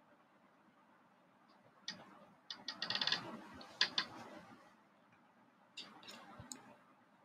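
A scatter of soft clicks and taps, with a short run of rapid rattling clicks about three seconds in.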